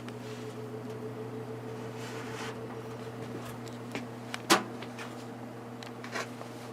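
GE F15W13 box fan's shaded-pole motor running on low speed with a steady hum, still slowly working up to speed as it does after sitting a while. A few light clicks sound over it, the loudest a sharp click about four and a half seconds in.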